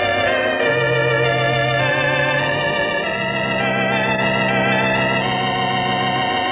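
Electric organ playing a slow, smooth tune over held bass notes, its sustained notes wavering slightly with vibrato.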